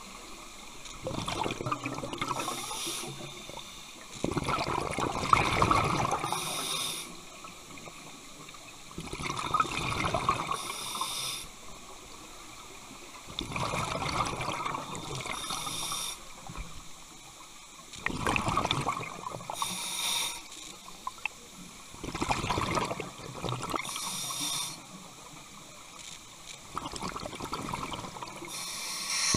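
Scuba regulator breathing heard underwater: each exhaled breath is a bubbling rush of bubbles, with a hiss from the regulator, about seven breaths coming every four to five seconds.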